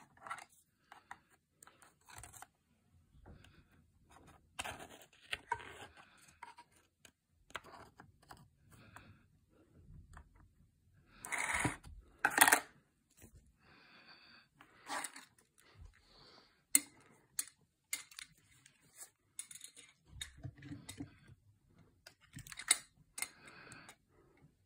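Handling noise from a camera and its parts being picked up and set down: intermittent rustling, scraping and clicks, with the loudest knocks about twelve seconds in.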